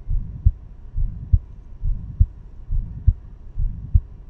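Stethoscope recording of a heart murmur from a heart with a hole in it (a septal defect). The heart beats at about 70 a minute, five beats here. Each beat is a low, noisy murmur about half a second long that ends in a sharp click.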